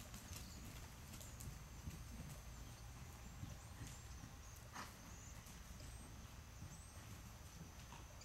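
Faint, muffled hoofbeats of a horse trotting on soft sand arena footing, in a steady rhythm.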